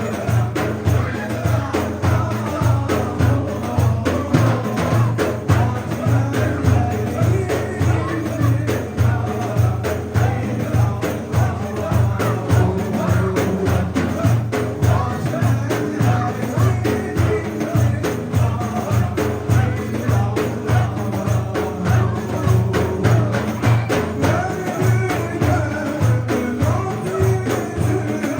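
Turkish Sufi hymn (ilahi) music: a melody over a steady, even percussion beat.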